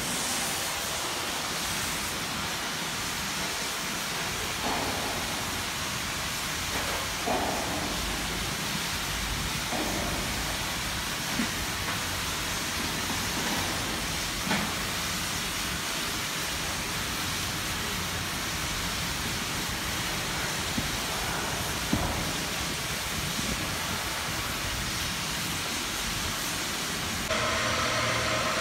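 Steady hiss of shipyard workshop noise, with a few scattered metal knocks and clanks. Near the end it gives way to a steadier machine hum.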